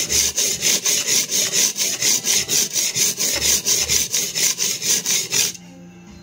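Steel cleaver blade scraped back and forth across a coarse sharpening stone in quick, even strokes, about five a second, a rhythmic rasping hiss; the strokes stop abruptly about five and a half seconds in.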